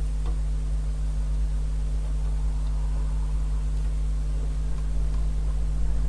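Steady low electrical hum, with a few faint ticks.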